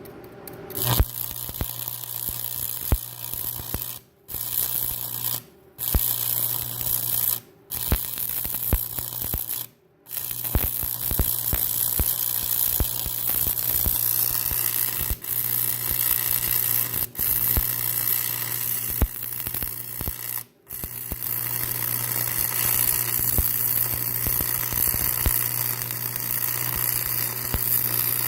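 Stick welder's arc crackling and sizzling steadily as a rod burns while welding steel, over a steady low hum. The arc goes out briefly about five times and is struck again.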